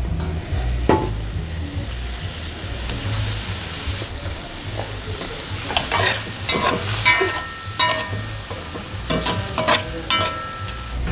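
Long metal spoon stirring and scraping stew in an aluminium pot on a gas burner, over a steady low rumble. The second half brings sharper scrapes and clinks against the pot, some of them ringing briefly.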